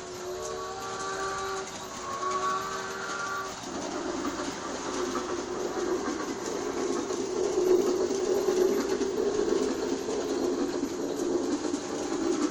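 G-scale toy steam train running on its track, a steady rumble of motor and wheels. In the first few seconds two blasts of a pitched whistle sound play over it.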